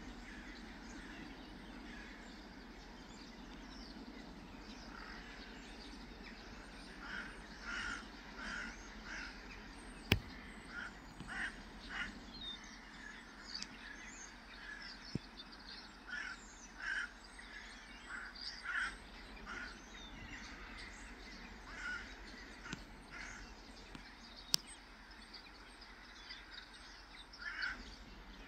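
Birds giving short, harsh calls, many of them scattered irregularly from about seven seconds in, over a steady low background rumble. Two sharp clicks, the loudest sounds, come about ten seconds in and again near the end.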